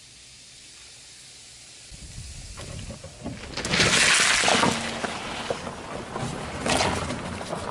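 Cola fizzing with a steady hiss as it is poured over Mentos in a watermelon half. About two seconds in a car tyre rolls in with a low rumble, and about four seconds in it crushes the watermelon with a loud crunching burst; more crunching follows near the end before the sound cuts off suddenly.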